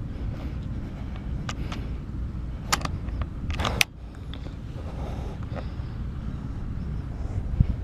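Wind buffeting the microphone, a steady low rumble, with a few sharp clicks and a short rustle about three and a half seconds in that cuts off suddenly.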